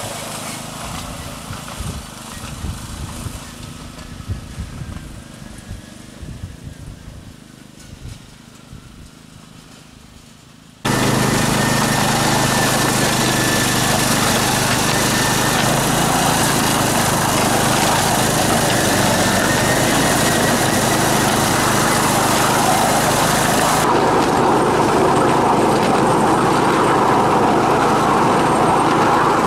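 7¼-inch gauge miniature train running on its track. The steady running noise, broken by low thumps, fades away over the first ten seconds or so. It then cuts suddenly to a much louder, steady run with a faint high whine.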